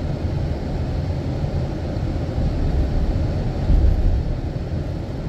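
Steady low rumble of a car at highway speed heard from inside the cabin, tyres and engine together, swelling briefly just under four seconds in.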